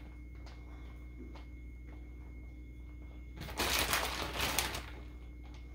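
Plastic bag of shredded cheese rustling and crinkling as it is handled, about three and a half seconds in and lasting a little over a second, after a few faint ticks, over a low steady hum.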